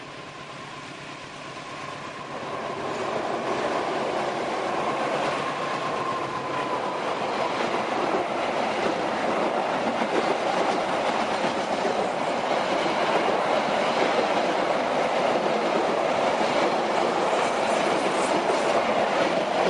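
Diesel-hauled passenger train approaching and passing close by as it crosses a girder bridge. It grows louder over the first few seconds, then the coaches' wheels clatter steadily past.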